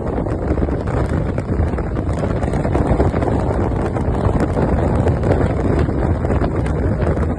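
Wind buffeting the microphone of a moving motorcycle: a loud, steady, churning rumble.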